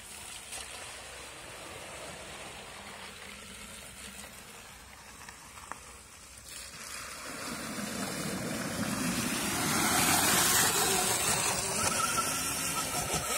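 Zero FX electric dirt bike ridden off-road, its tyres on dirt and through muddy water. The noise is faint at first and grows louder from about halfway through.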